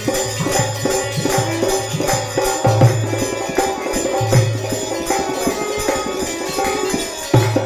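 Instrumental bhajan music: a steady, rhythmic drum beat with jingling percussion over held melodic notes.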